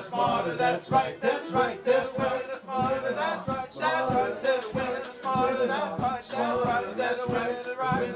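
Live calypso band playing: male voices singing over guitars, bass and steady hand percussion.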